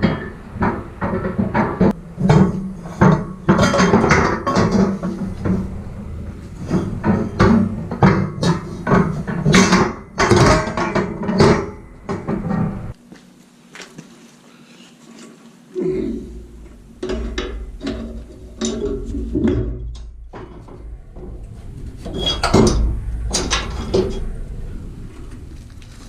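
Background music with a steady percussive beat for about the first half. Then, after an abrupt change, scattered knocks and clanks of tow gear being handled over a low rumble.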